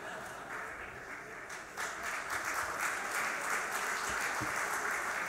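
Audience applauding, swelling louder about two seconds in.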